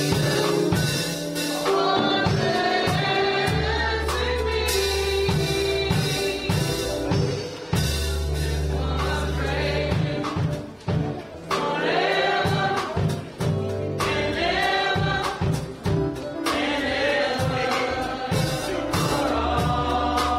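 Gospel choir singing with band accompaniment: a steady drum beat and sustained bass notes under the voices.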